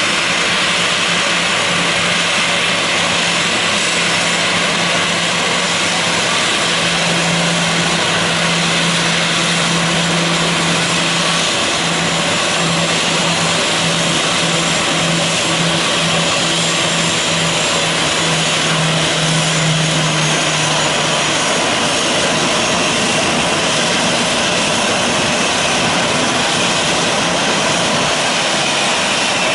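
Boeing 737-800's CFM56 jet engines running steadily as the airliner taxis: a loud, even rush with a low steady hum under it that drops slightly in pitch and fades out about twenty seconds in.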